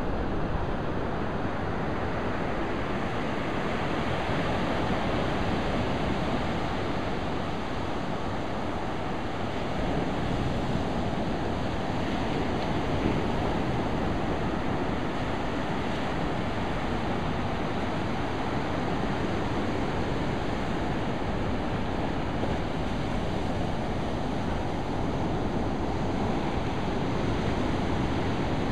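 Sea surf breaking and washing up a sandy beach: a steady, continuous rush of waves, with wind rumbling on the microphone.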